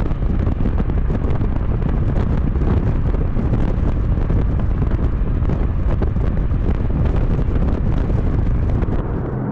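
Porsche Macan Turbo at highway cruise, about 76 mph in 7th gear: a steady, loud rush of wind buffeting the microphone mixed with road and drivetrain rumble, with no distinct exhaust note.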